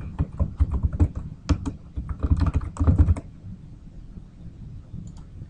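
Typing on a computer keyboard: a quick run of keystrokes for about three seconds, then stopping. A couple of faint clicks come near the end.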